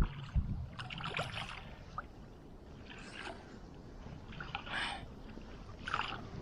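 Water splashing in short bursts every second or so, over a low rumble, with two dull thumps near the start.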